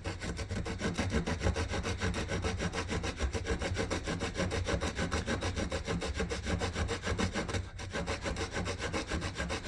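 Tiny saw blade of a Cabela's mini keychain multi-tool sawing a notch into wood with quick, even back-and-forth strokes, with a brief pause about eight seconds in.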